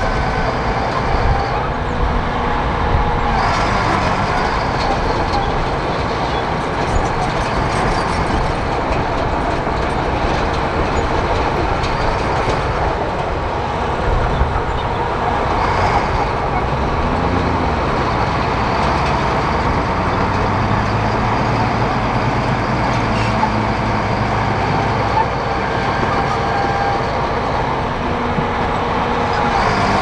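Komatsu crawler bulldozer's diesel engine running steadily under load as the machine pushes and spreads dirt.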